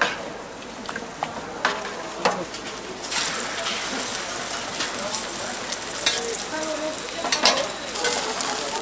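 Beef yukjeon, egg-battered slices of beef, sizzling as they fry, with scattered clicks and scrapes of a cooking utensil. The sizzle grows louder about three seconds in.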